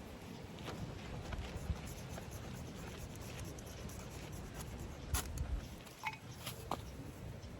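Faint scattered clicks and light rustling over a low steady background, with a sharper click about five seconds in and two short high chirps near the end.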